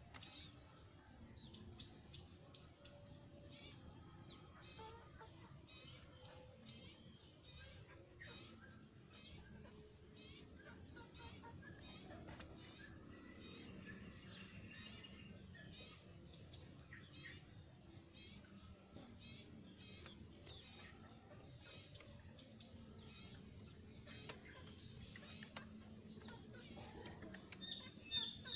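A moulting jongkangan bird giving short, faint, hoarse chirps again and again rather than full song, its voice rough while it is shedding its feathers. A few sharper clicks come in the first few seconds.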